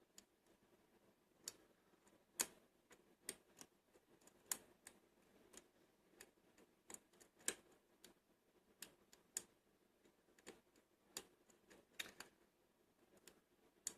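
Faint, irregular clicks of a lock pick working the pin stacks of a Lockwood V7 cabinet lock, one or two a second, as the tapered pins are massaged to set under tension.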